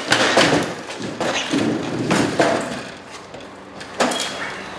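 Metal electrical subpanel enclosure being worked loose and pulled out of its wall opening: a run of clattering knocks and scraping, several sharp hits through the stretch, with one loud knock near the end.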